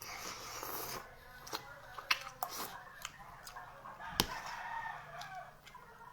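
A rooster crowing in the background, a long drawn-out call, over sharp clicks from eating, the loudest about four seconds in.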